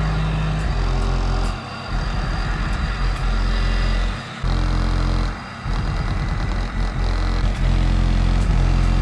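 A low bass test track played through car-audio subwoofers in a pickup's cab, driven by a 5,000-watt amp: deep held bass notes that step from one pitch to another and drop out briefly three times. On the hard notes the truck's rear glass rattles, a rattle that comes from the glass and not from the subwoofers.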